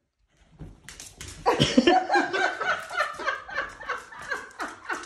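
A person laughing, breaking out about a second and a half in and going on in quick repeated bursts, loudest at the start.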